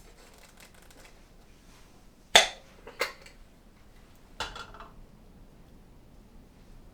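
Dishes or cookware knocking together during a meal: three sharp clinks with a short ring. The first, about two seconds in, is the loudest, then one just after it and a softer one about a second and a half later.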